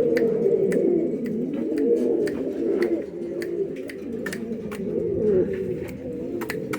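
Many pigeons cooing at once, their low, wavering coos overlapping continuously, with scattered faint clicks.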